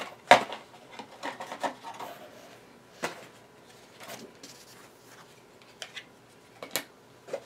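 Small items and packaging being handled: rubbing and rustling, with a few sharp clicks and knocks, the loudest just after the start.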